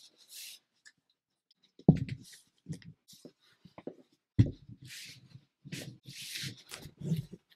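Long cardboard shipping box being handled and opened: two sharp thumps, about two and four and a half seconds in, as it is set down, then scraping and rustling of cardboard flaps and packing.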